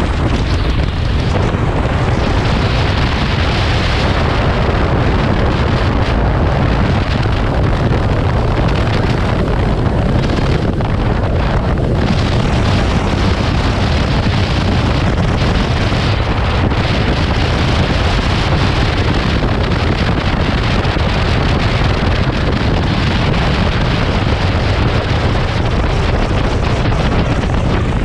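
Steady wind noise buffeting the microphone of a touring motorcycle at road speed, over the low, even rumble of its engine.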